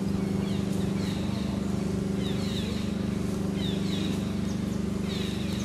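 A steady low mechanical hum runs throughout. Over it, a bird repeats a short phrase of falling chirps about every second and a half.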